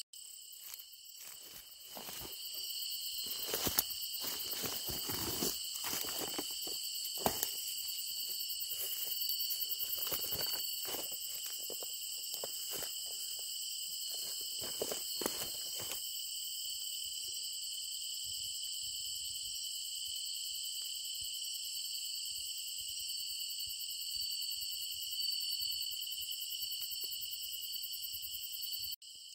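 Crickets and other night insects chirring in a steady, high, multi-toned chorus. For about the first sixteen seconds, irregular rustles and light taps sound over it, then stop, leaving only the insects.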